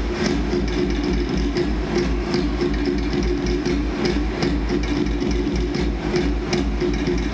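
Stage show music with a fast, steady low drumbeat.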